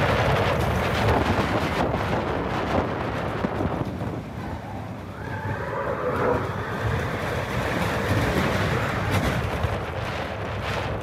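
Roller coaster train rumbling along its steel track at speed, with wind buffeting the microphone; the noise eases slightly near the middle, then builds again.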